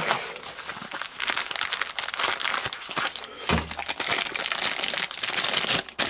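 Thin clear plastic bag crinkling and rustling continuously as hands handle it, with many small crackles.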